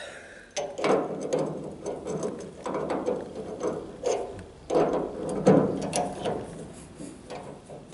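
Irregular small clicks and scrapes of glass and metal as a new glass fuel sediment bowl is worked into its wire bail clamp and snugged up with the thumb screw.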